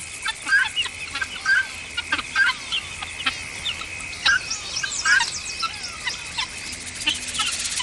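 Grassland birds calling in alarm: many short sharp chirps and harsh clicks at irregular intervals, over a steady high-pitched whine.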